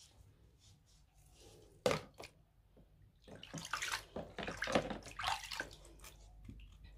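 Water splashing and sloshing in a plastic foot basin as hands wash and rinse the feet: one sharp splash about two seconds in, then a few seconds of continuous splashing.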